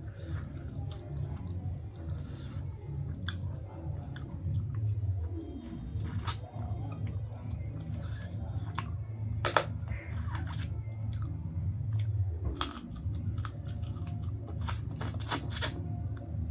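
Close-up eating sounds: chewing with crunches and sharp mouth clicks at irregular moments, the strongest about nine seconds in and a cluster near the end, over a low steady hum.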